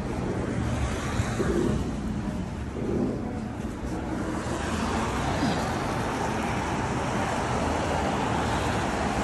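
Steady road noise of a car in motion, a constant rumble with hiss, a little brighter in the upper range from about halfway.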